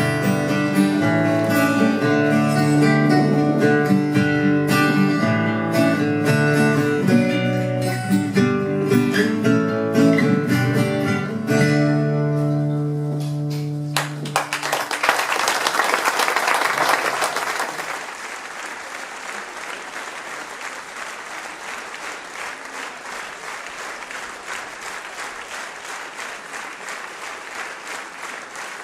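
Guitar music playing, ending about halfway through, followed by applause that is loudest for the first few seconds and then goes on more quietly.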